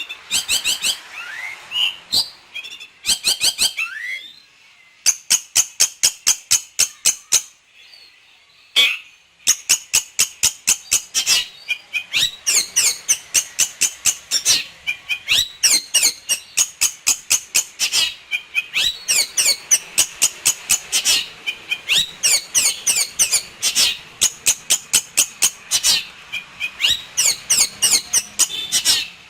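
Long-tailed shrike (pentet) singing a song full of mimicked phrases: fast runs of sharp, high repeated notes broken by short pauses, after varied gliding chirps in the first few seconds.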